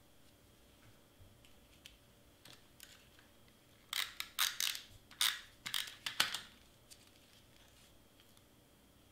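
Cardstock pieces and a glue tape roller being handled: a few faint clicks, then a quick run of short, scratchy rustles and rubs about four seconds in, lasting around two and a half seconds.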